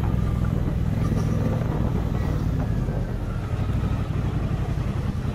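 Triumph Bonneville Speedmaster's 1200 cc parallel-twin engine and exhaust running steadily as the motorcycle cruises, heard from the bike itself with some road and wind noise.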